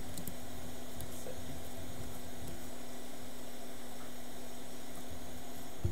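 Steady electrical hum with one low tone and a faint hiss beneath it, from the microsoldering bench equipment; the tone cuts off just before the end.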